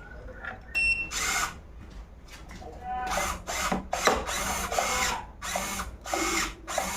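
A small power tool or motor whirring in short repeated bursts, roughly one every half second to second, after a brief ringing tone about a second in.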